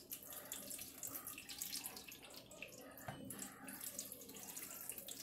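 Melted butter pouring in a steady stream from a plastic container onto vegetables in a wire grill basket, trickling and dripping onto the metal sheet pan beneath. The sound is faint.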